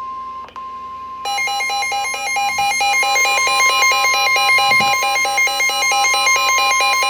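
The weather-radio warning alarm: a steady high tone near 1 kHz. About a second in, a loud electronic alarm joins it, beeping fast and evenly and growing louder.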